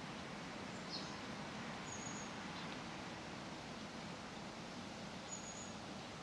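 Outdoor park ambience: a steady hiss of leaves rustling over a faint low hum of distant traffic, with a few brief, high chirps from small birds, about one, two and five seconds in.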